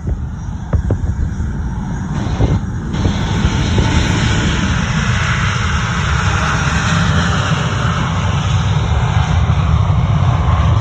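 Jet noise from a Boeing 727-200's three Pratt & Whitney JT8D engines: a loud, steady rush over a deep rumble that grows louder about three seconds in.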